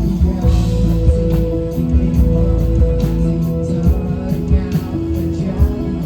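Rock band music: electric guitar and bass over a steady drum beat, with singing at times.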